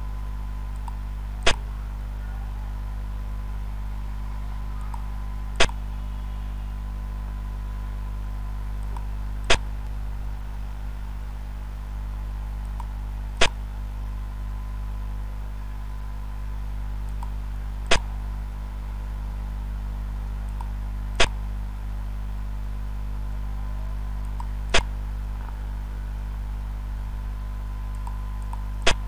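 Sharp single clicks of a xiangqi program's piece-move sound effect, eight in all, one every three to four seconds as each move is played. A steady low hum runs under them.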